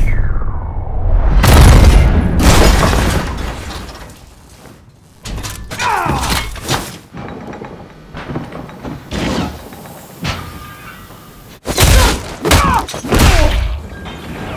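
Layered fight sound effects: heavy booming impacts and thuds, with glass shattering. A falling whine fades out over the first second or so, and more hits land with sweeping tones around the middle and again near the end.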